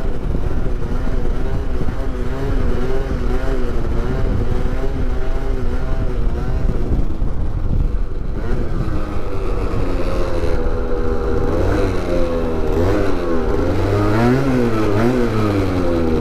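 Small two-stroke scooter engine running while being ridden, its note wavering at first, then rising and falling repeatedly from about halfway as the throttle is opened and closed.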